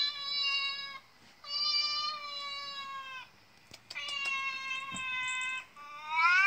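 Recorded cat meows played through a tablet's speaker: three long, level-pitched meows of about one and a half to two seconds each with short gaps, then a louder meow rising in pitch that begins near the end.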